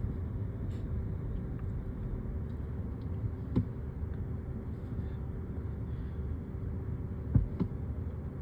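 Steady low rumble of background noise in a large convention hall, with a faint steady hum and a few light knocks, the loudest near the end.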